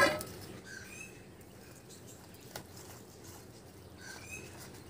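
A bird's faint two-note chirp, given twice about three seconds apart, with a single light click between them.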